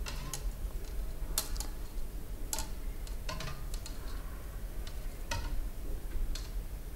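Irregular light clicks and taps of a thin rod knocking against the inside of a clear acrylic tube as it spreads expanded-polystyrene beads along it.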